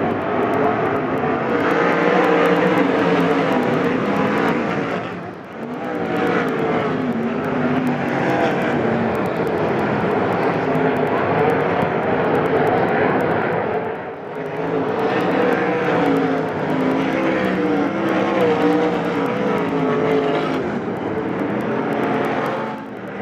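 A field of dirt-track sprint cars racing, their engines at full throttle and rising and falling in pitch as they work around the oval. The sound dips briefly three times, about every nine seconds, as the pack swings to the far side of the track.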